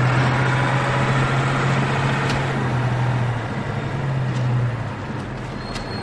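Road traffic noise with a heavy vehicle's steady low engine hum, which fades out near the end.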